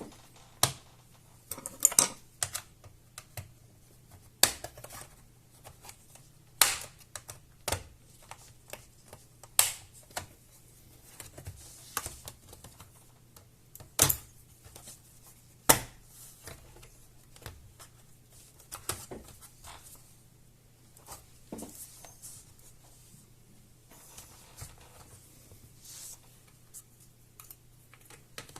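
Irregular sharp clicks and taps of hand tools and small parts on a Toshiba Satellite C50 laptop's plastic case as it is taken apart.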